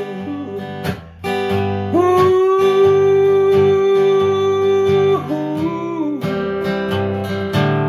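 Acoustic blues guitar strumming a steady rhythm, with a long held note over it from about two seconds in that slides down in pitch about five seconds in.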